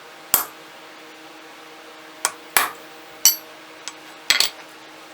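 A hammer striking a punch on a steel block to mark a hole centre for drilling. About six sharp metallic blows come at irregular intervals, the last two close together, and a couple of them ring briefly.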